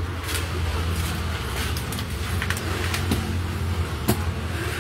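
A steady low engine hum runs throughout, with a few short sharp knocks and slaps as fish are handled and dropped into plastic baskets.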